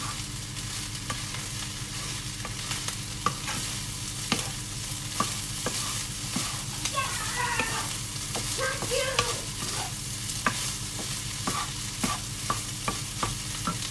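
Fried rice sizzling in a black wok as a wooden spatula stirs and tosses it, with frequent short clicks and scrapes of the spatula against the pan. A steady low hum runs underneath.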